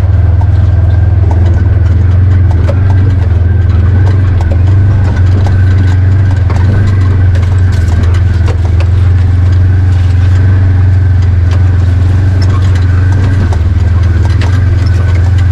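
Polaris side-by-side UTV engine running steadily under way, a strong low drone that barely changes pitch, with scattered clicks and rattles from the ride over rough ground.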